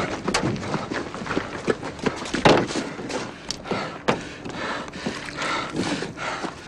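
A run of irregular thuds and knocks over a scuffling noise, the loudest about two and a half seconds in.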